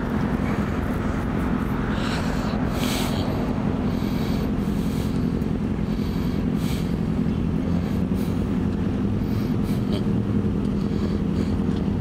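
A vehicle engine idling steadily, a low even hum, with a few faint brief hisses about two to three seconds in.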